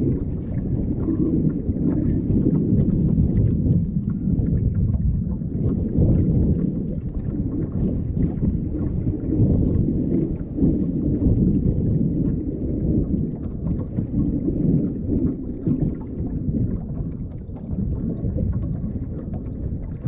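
Strong wind buffeting the microphone: a heavy, gusting low rumble that swells and eases, with a few light taps on top.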